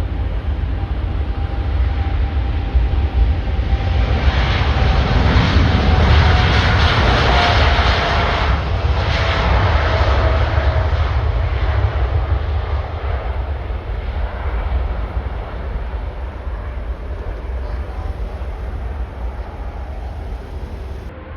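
Jet airliner's engines passing by: a roar that builds about a fifth of the way in, peaks for several seconds and then slowly fades, with a faint whine that falls gently in pitch as it goes.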